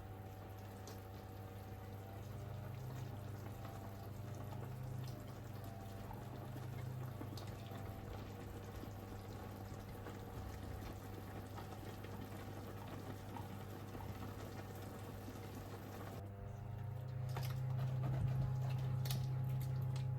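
Liquid bubbling and moving in a kitchen over a steady low hum, with a few light clicks near the end as the sound gets louder.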